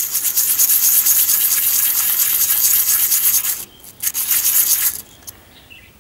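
A metal sewing-machine tension disc rubbed rapidly back and forth on 360-grit metal sandpaper laid flat, to sand rust and corrosion off its pressing face. A long run of fast strokes, a brief pause, then about another second of sanding that stops about five seconds in.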